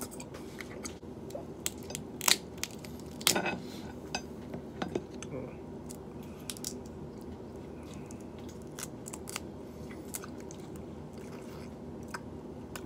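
Crab-leg and shrimp shells cracking and crunching as they are pulled apart by hand, with chewing: a scatter of sharp cracks, the loudest about two and three seconds in. A steady low hum runs underneath.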